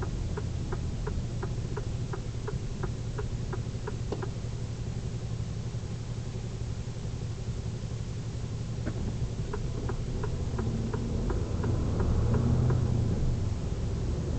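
Inside a lorry cab: the diesel engine idling with a steady low rumble while the indicator ticks about three times a second in two spells. Near the end the engine gets louder.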